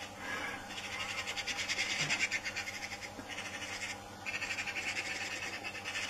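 Magpie giving a harsh, rapid chattering rattle of about eight notes a second, in two long runs with a short break about four seconds in. It is the alarm chatter of a magpie seized and pinned down by a hawk.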